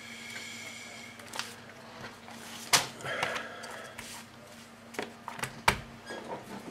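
A plastic model kit's parts, decal sheet and instruction booklet being handled and packed back into the cardboard box: rustling with sharp knocks and taps, the loudest about three seconds in and another near the end, over a faint steady hum.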